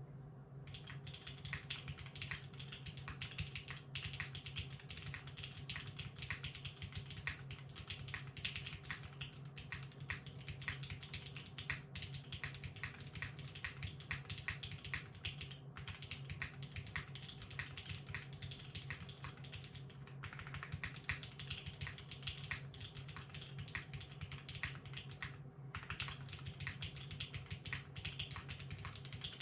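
Continuous fast typing on a 60% mechanical keyboard with broken-in vintage Cherry MX Black linear switches on an aluminium full plate, under GMK Classic Blue keycaps, with a vintage Cherry MX Grey spacebar. The keystrokes come in a dense run with a few short pauses, over a low steady hum.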